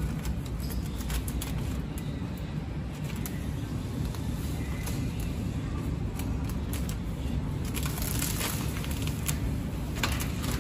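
Clear plastic packing film rustling and crinkling as it is pulled through the machine's rollers, with scattered light clicks, over a steady low hum.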